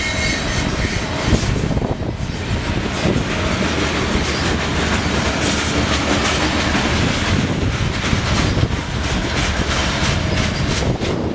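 Covered grain hopper cars of a freight train rolling past: a steady rumble of steel wheels on rail, with clicks as the wheels cross rail joints.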